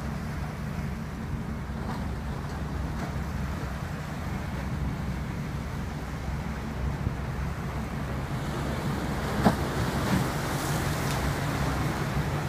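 Offshore supply vessel's diesel engines droning steadily as it passes close by, under wind and water noise that grows louder in the second half. A single sharp knock about nine and a half seconds in.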